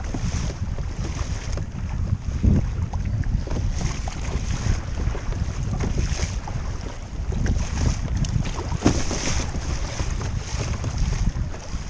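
Wind buffeting the microphone over water rushing and splashing at the bow of a kayak being towed through choppy water by a hooked fish. The splashing comes in irregular surges.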